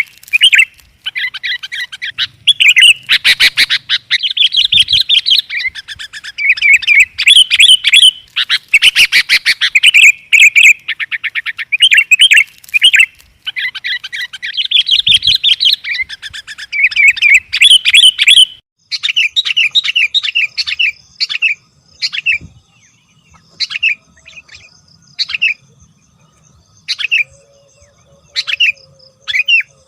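Sooty-headed bulbul (kutilang) chirping and calling: a dense run of rapid, high chirps for most of the first two-thirds, then shorter separate chirp phrases with pauses between them.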